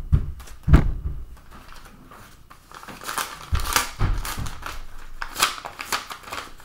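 A paper envelope being opened and handled as a card is slid out, heard as a string of short rustles from about three seconds in. Two dull thumps come in the first second.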